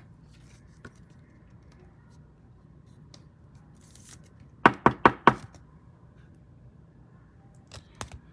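Four quick, sharp knocks in a row, a little past the middle, followed by a few faint taps near the end.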